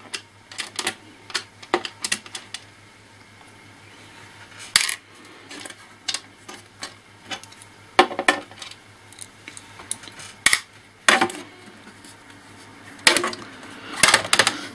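Scattered sharp clicks and light metallic clinks, irregular and spaced over several seconds: small screws and a screwdriver being handled while a laptop's case is unscrewed and taken apart.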